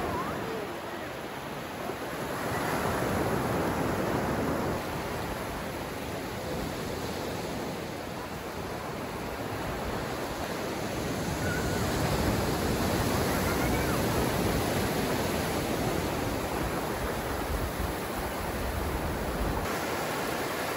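Steady rushing of sea surf and wind, swelling and easing over a few seconds at a time.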